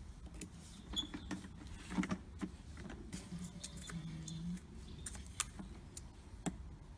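Scattered clicks and rattles of a plastic garden-hose connector being worked onto the water inlet of a Titan electric pressure washer, with sharper knocks about two seconds and five seconds in.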